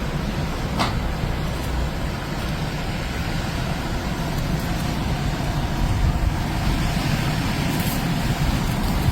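Motor vehicle traffic in snow: a steady low rumble of engines and road noise, with a faint click about a second in.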